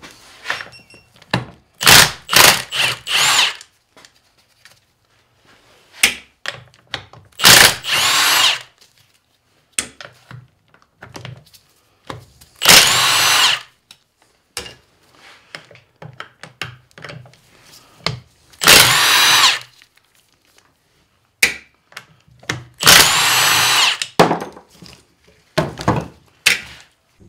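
Cordless power tool spinning bolts out of an NP231 transfer case housing in a series of short bursts of about a second each, several with a rising whine. Light knocks and clinks of metal come between the bursts.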